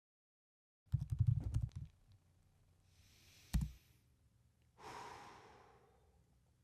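A quick run of thumps and clicks, then a single sharp click with a low thud about halfway through, followed by a person's breathy sigh that fades away.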